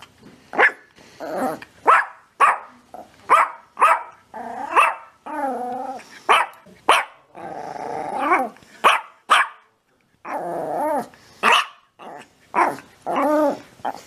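A pinscher barking in a rapid, agitated run of short sharp barks, mixed with longer wavering growl-barks.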